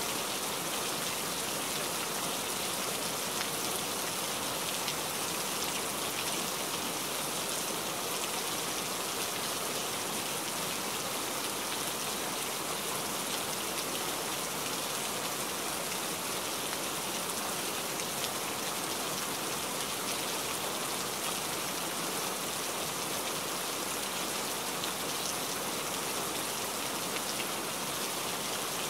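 Steady rain falling: an even hiss flecked with the taps of countless single drops, unchanging throughout.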